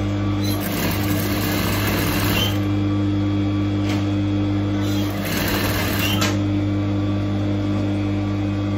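Electric sewing machine running steadily, stitching continuously through layers of cloth.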